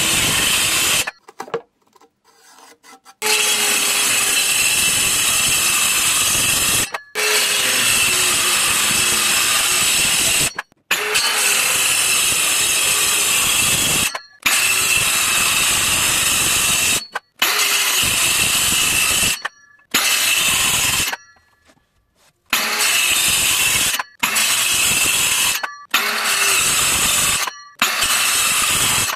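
INGCO circular saw running and cutting 9 mm plywood, heard as about ten separate cuts of a few seconds each, with sudden silent gaps between them.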